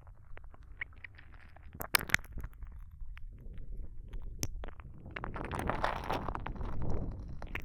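Close kissing sounds: sharp wet lip smacks and pops, with soft moist mouth noise that swells louder toward the end.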